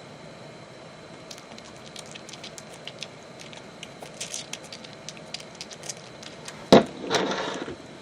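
Small plastic action-figure accessories being handled: scattered light clicks and taps, then one sharp knock near the end as a piece is set down, followed by a brief rustle.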